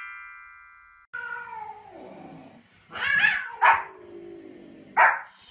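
A chime fades out over the first second. Then comes a long, falling cat meow, and a Pomeranian gives a few sharp barks, about three seconds in and again near the end.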